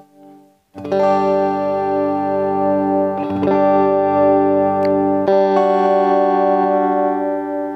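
JCraft S1H electric guitar plugged straight into a sound card with no amp or pedal, on a clean tone: three chords played and left to ring, the second about three seconds in and the third about five seconds in.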